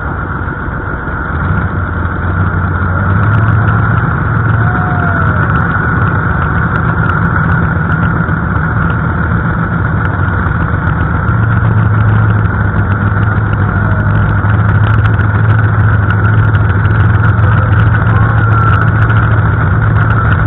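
Pulling tractor's engine idling, growing louder about two seconds in and again about halfway through as the tractor closes in on the sled.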